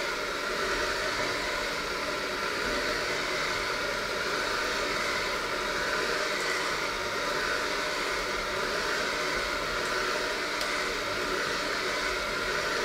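Electric hand mixer running steadily, its beaters working a stiff, crumbly mixture in a stainless steel bowl.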